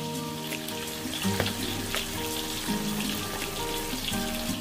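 Tilapia deep-frying in hot oil in a wok, a steady sizzle with scattered crackles, under background music with held notes.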